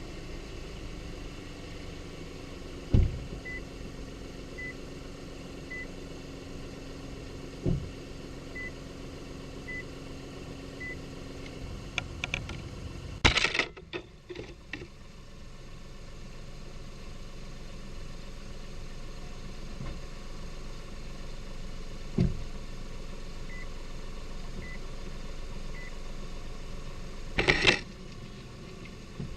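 Lexus IS250 (GSE20) driven over uneven road, with a steady road rumble and a few sharp knocks from the suspension at bumps. This is the kind of rattling and clunking over bumps that the owner suspects comes from the stabilizer links. Faint evenly spaced beeps come in twice, and two brief louder noisy bursts occur, one about halfway through and one near the end.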